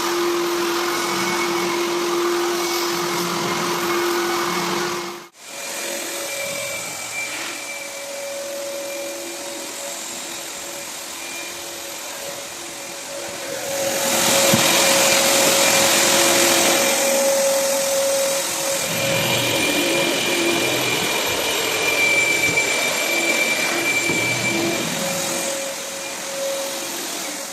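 A vacuum motor running with a steady whine. The sound cuts out for an instant about five seconds in and comes back at a higher tone, then gets louder for a few seconds around the middle.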